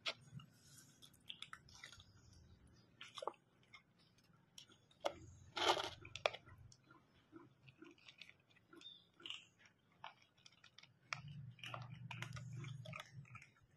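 A puppy and a cat chewing and crunching dry food pellets from plastic bowls, with irregular small clicks and crunches. One louder crunch comes about halfway through, and a low rumble sets in near the end.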